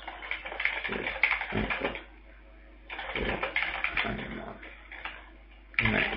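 Computer keyboard typing in two quick runs of keystrokes with a pause of about a second between them, then a short louder burst near the end.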